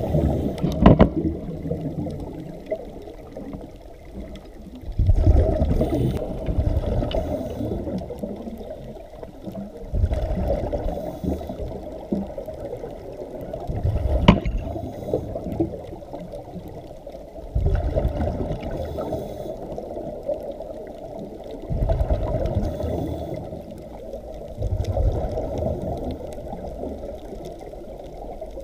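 Muffled underwater water noise with bubbling and gurgling, swelling in a surge every four to five seconds, with a sharp click about fourteen seconds in.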